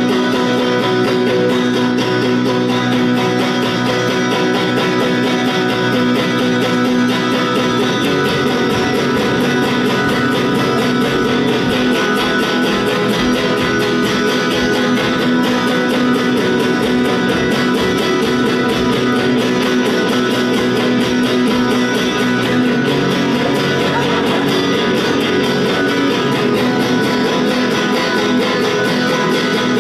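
Live electric guitar playing a dense, steady improvised piece with sustained, layered tones; fuller low notes come in about eight seconds in.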